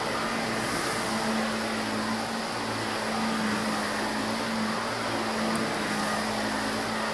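Shark upright vacuum cleaner running, pushed back and forth over carpet: a steady motor hum with airflow noise.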